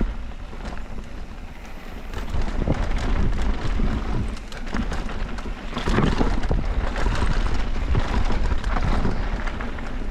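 Wind buffeting the helmet or body-mounted GoPro microphone as an electric mountain bike descends a dirt bike-park trail. Tyre rumble runs under it, with frequent knocks and rattles from bumps, and it gets louder about two and a half seconds in and again at about six seconds.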